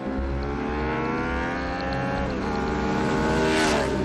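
Motorcycle engines accelerating along a road, their pitch climbing and dipping at a gear change about halfway through. Near the end one bike passes close with a rush and a falling pitch.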